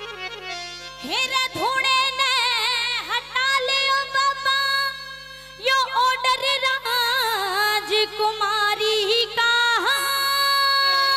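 A woman singing a Haryanvi ragni into a microphone in a high voice, with wide vibrato and quick ornamental turns, after steady held notes of a harmonium. The singing starts about a second in and breaks off briefly near the middle.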